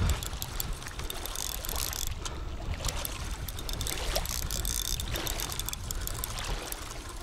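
Wind rumbling on the microphone over river water at the shore, with faint clicking from the fishing reel while a hooked carp is played on the rod.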